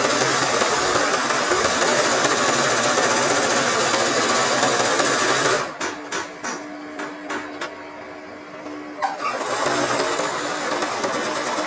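Sewing machine stitching free-hand embroidery at full speed, a steady fast run of stitches. A bit under six seconds in it slows to a few separate stitches with a low hum underneath, then speeds back up about three seconds later.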